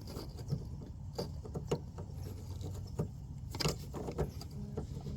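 Scattered small clicks and taps of hands fitting a rubber gasket onto a new H11 HID headlight bulb, the sharpest click about three and a half seconds in, over a steady low hum.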